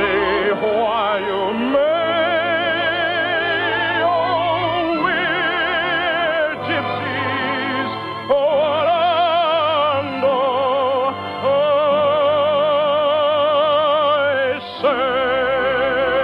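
Operetta music: an orchestra playing long phrases of sustained notes with a wide vibrato, heard through the narrow, dull sound of an old radio broadcast recording.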